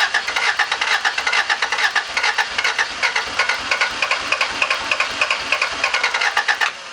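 Honda CRX's Si engine being cranked by the starter motor, with an even pulsing rhythm of several beats a second, never catching, and cutting off abruptly near the end. It cranks but does not fire: a no-start.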